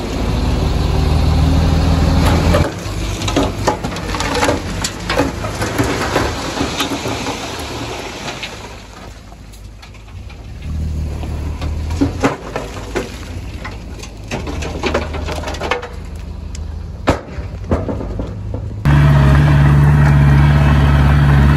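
Heavy earthmoving machinery at work: a low engine drone with many sharp clanks and knocks of metal and rock. The sound shifts abruptly a few times.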